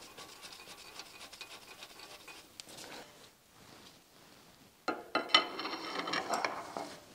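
A wrench working on the gib screws of a cast-iron milling machine knee: faint rapid rubbing and ticking, then about five seconds in a louder stretch of metal scraping and clinking with a ringing tone.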